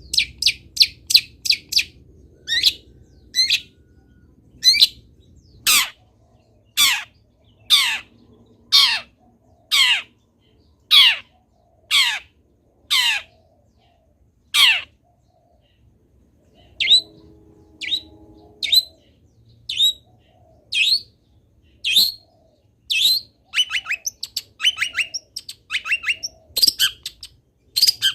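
Long-tailed shrike (cendet) calling in a long series of short, harsh notes that sweep down in pitch, quick runs at the start and end and about one note a second in the middle.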